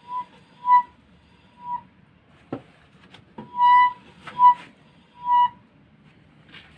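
Lada Vesta SW rear left wheel squeaking: about six short, high-pitched squeals at irregular intervals, the loudest in the second half, with one sharp knock midway.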